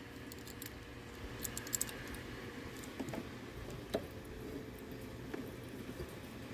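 Faint, irregular small clicks and taps of a tool working at a stuck nail in the old wooden radio cabinet, trying to pull it out.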